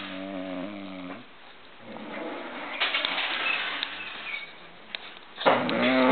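A sleeping woman snoring: a low, pitched snore in the first second, a breathy rasp of air in the middle, then a louder snore starting near the end.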